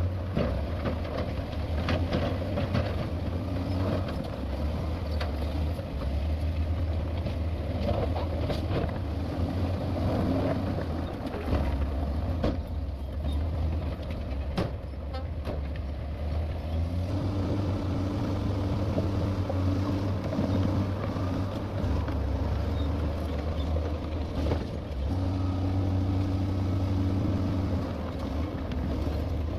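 Heavy diesel earthmoving machinery running: a deep engine drone with scattered clanks and rattles, and a steadier engine tone that comes in about halfway through and again near the end.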